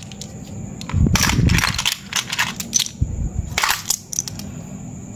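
Coins being handled and knocked together: a rapid cluster of sharp clicks and clinks about a second in, then scattered clicks and a shorter cluster past the middle.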